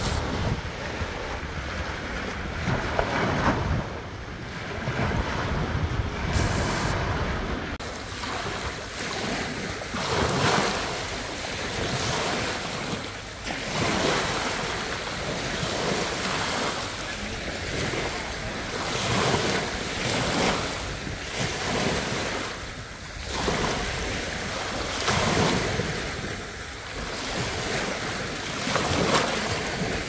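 Small waves breaking and washing up a sandy beach, the surf swelling and falling back every three to four seconds.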